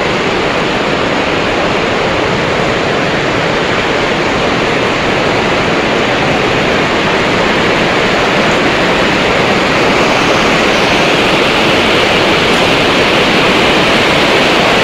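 Steady, loud rushing of heavy storm rain on the building's roof, heard from inside.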